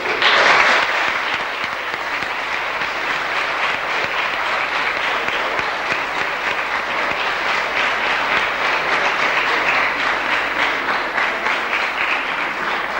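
Audience applauding: dense clapping that starts abruptly, is loudest in the first second, then holds steady and begins to fade near the end.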